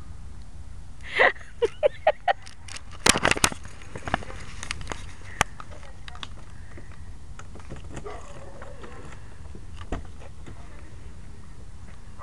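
A small dog yelping a few times in quick short calls, followed by a cluster of sharp knocks, then steady outdoor background noise.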